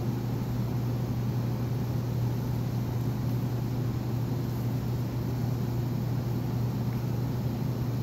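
Commercial kitchen machinery running with a steady low hum.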